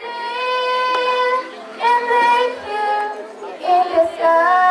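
A song with a high sung voice holding long, drawn-out notes over music.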